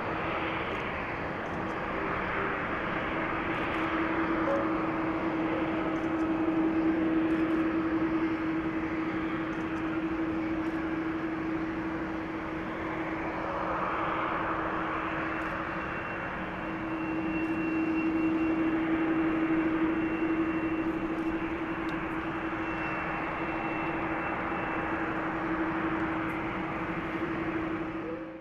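Boeing 787-8 twin GEnx-1B turbofans at taxi power, a steady jet rush over a held low tone, swelling twice as the airliner taxis past.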